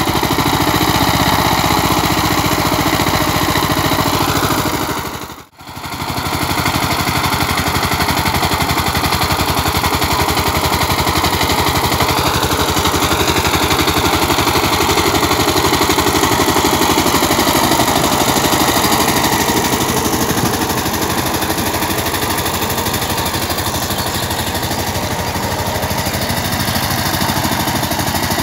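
Two-wheel power tiller's single-cylinder diesel engine running steadily with a fast, even chug as it works through deep mud. The sound drops out briefly about five seconds in.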